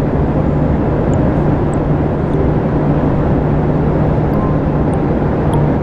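Steady cabin noise of a private jet in flight: an even rush of engine and airflow noise with a constant low hum underneath.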